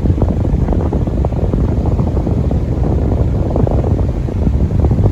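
Delta Gold electric fan running fast, its airstream buffeting the microphone in a loud, steady rumble.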